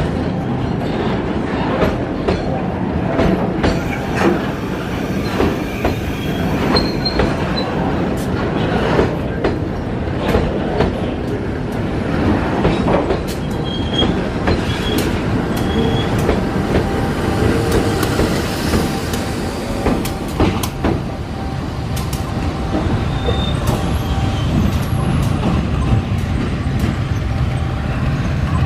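Train of fuel tank wagons rolling past while reversing, the wheels knocking irregularly over the rail joints with a few short, high wheel squeals. The diesel locomotive's engine hum rises in the later part as it passes.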